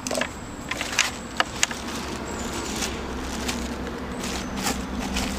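Fishing tackle being handled and rummaged through: a scatter of small clicks and knocks, about eight across a few seconds, over a steady low rumble in the background.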